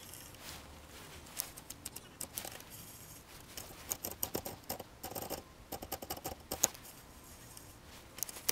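Quiet, irregular clicks and ticks of a spinning reel and its line being handled by hand, coming thicker from about four seconds in.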